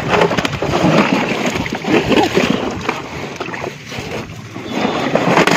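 Pond water splashing and sloshing in irregular bursts as large rohu fish are handled in a net, loudest in the first couple of seconds and again near the end.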